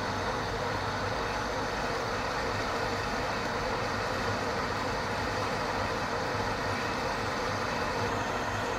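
Metal lathe running steadily while its cutting tool turns down a metal bar: a continuous machining noise with a low hum underneath.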